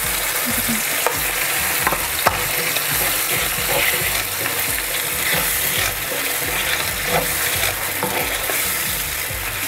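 Sauce with whole garlic cloves and sugar sizzling in a hot pan while a wooden spoon stirs it, with a few light knocks of the spoon against the pan.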